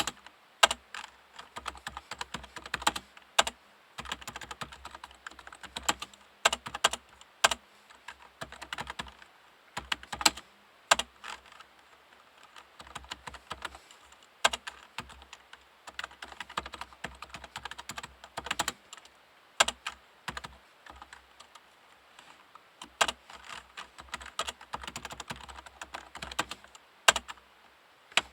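Typing on a Topre REALFORCE 108P-S silent-type keyboard with electrostatic capacitive (Topre) switches: a quick, irregular run of soft keystrokes, with now and then a louder stroke and a few brief pauses.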